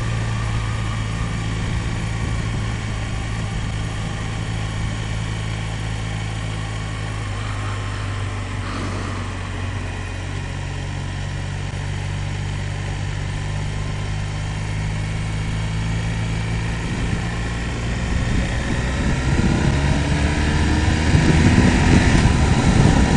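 Motorcycle engine running at a steady cruise with wind noise, then pitch and loudness climbing over the last few seconds as the bike accelerates.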